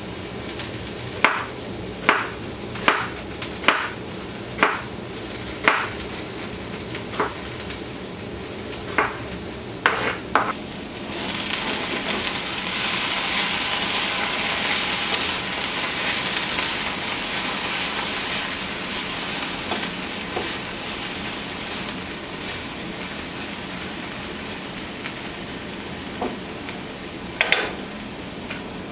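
Several sharp knocks on a skillet. Then, about eleven seconds in, homemade black bean patties start sizzling loudly in hot oil and keep sizzling steadily, with two more knocks near the end.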